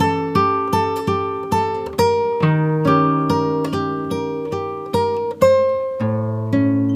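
Background music: acoustic guitar picking a steady run of plucked notes over bass notes.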